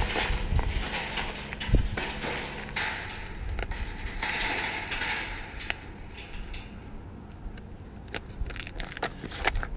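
Footsteps crunching on icy snow while a metal tube gate is moved and set in place, with scattered knocks and clinks from the gate, the sharpest about two seconds in. Wind rumbles on the microphone.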